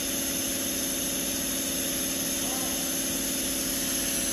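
Polyurethane foam spraying machine running steadily, a constant mechanical hum with several steady tones and no change in pitch or level.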